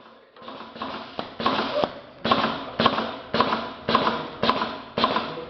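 Automatic belt-loop and tape cutting machine running, cutting about twice a second in a steady rhythm. Each cut is a sharp click followed by a fading rush of noise. It starts about half a second in and builds up over the first second or so.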